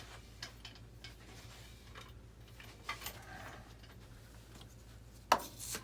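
Scattered light clicks and taps of parts being handled on a workbench, with one sharp knock about five seconds in, over a steady low hum.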